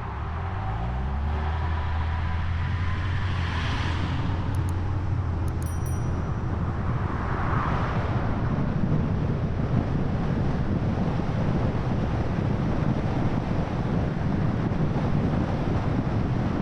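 Road traffic: a vehicle engine rises in pitch as it speeds up over the first second or so, then settles into a steady low rumble of road noise, with vehicles swelling past about four and eight seconds in.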